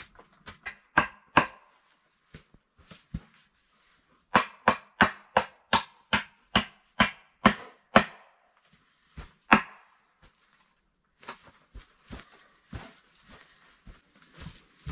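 Hand hammer striking wood. Two sharp blows come about a second in, then a steady run of about eleven blows at roughly two and a half a second, and one more blow near the middle, followed by softer knocks and scuffs.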